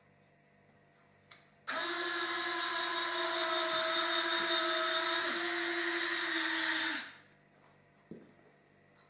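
Small electric motor of an F-104 landing gear mechanism running for about five seconds with a steady whine, cycling the gear. A light click comes just before it starts and another about a second after it stops.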